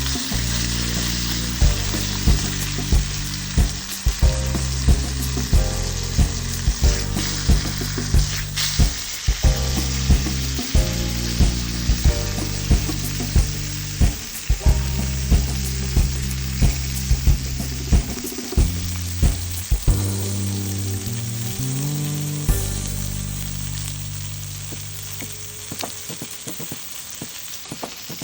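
Food sizzling, a steady hiss, under background music with low bass notes and a regular beat that fades out near the end.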